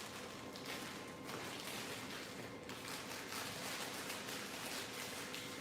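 Soft, irregular rustling of hair being combed and wound onto a small Velcro hair roller, over a faint steady hum.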